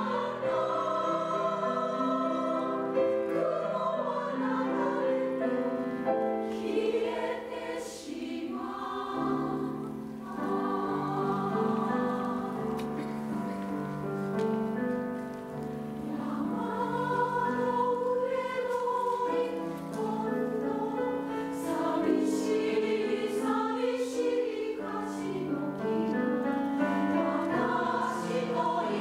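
Women's three-part choir singing in held, sustained lines, with grand piano accompaniment.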